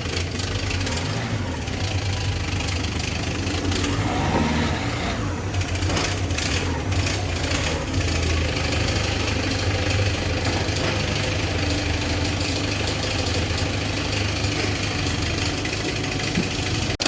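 Peugeot 206 1.4 HDi diesel engine running at idle with a loud noise from a damaged crankshaft pulley.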